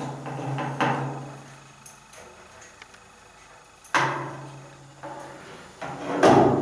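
Metal clicks and knocks from a TV antenna's wire reflector being fitted to the boom and screwed tight by hand: a sharp knock about a second in and a louder one about four seconds in, each ringing briefly, with faint ticks between.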